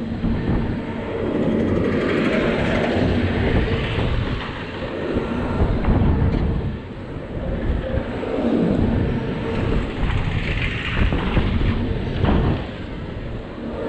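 Wind rushing over a rider-mounted camera's microphone as an SBF Top Hat spinning ride turns, with the ride's steady low rumble beneath. The noise swells and eases in waves as the seats dip and rise.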